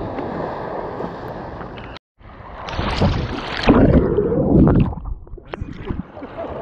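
Ocean surf sloshing around a camera at the water's surface. About two seconds in, the sound cuts out briefly as a breaking wave swamps the camera. Loud churning of water follows until about five seconds in, then it eases to lighter sloshing as the camera resurfaces.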